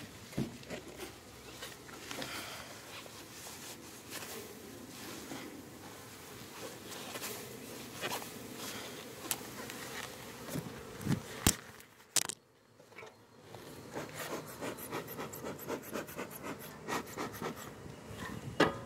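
Honeybees buzzing around an open hive, with scrapes, clicks and knocks of hive parts being handled; a sharp knock about 11 seconds in and another near the end.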